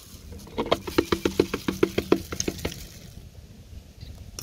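A spoon tapping rapidly on a plastic funnel, about seven light knocks a second for some two seconds, to knock sugar that has stuck in the funnel's narrow neck down into a plastic bottle.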